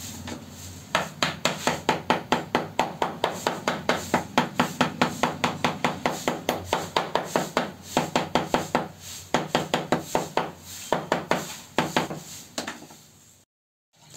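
Rapid, even tapping on a ceramic floor tile set in a wet cement bed, about four or five taps a second in several runs with short pauses, tamping the tile down level into the mortar.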